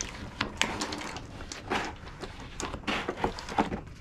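A sharp blade slicing around the inner edge of a Sundown Audio NS.v4 18-inch subwoofer's surround: irregular scraping with many short, sharp clicks as the cut works around the cone.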